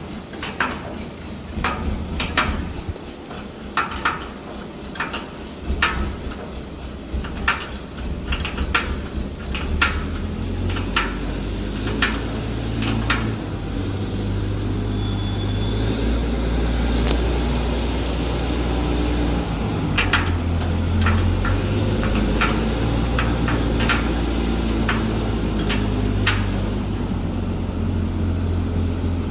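Light metallic clinks and taps from work on a paper band saw cutting machine, then from about ten seconds in a steady low machine hum that shifts in pitch a few times, with a few more taps over it.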